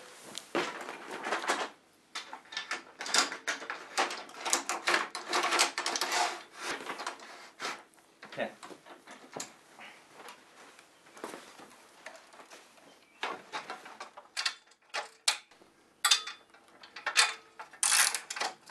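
Metal trellis security gate rattling and clacking as it is lifted and fitted into its top track: a run of irregular clicks and knocks, sharper near the end.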